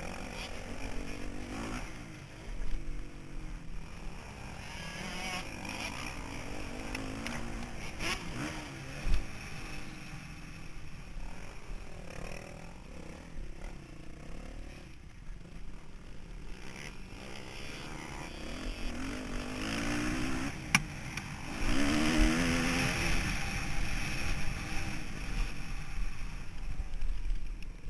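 Motocross bike engine heard from on board, its pitch rising and falling as the throttle opens and closes around the track, over a steady wash of wind and running noise. A couple of sharp knocks cut through, one about nine seconds in and a thinner one after about twenty seconds.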